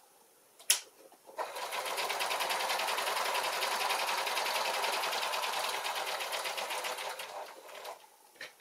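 Electric sewing machine stitching a straight seam through quilted fabric and batting: a sharp click about a second in, then the machine runs steadily with rapid needle strokes for about six seconds and slows to a stop, followed by a small click.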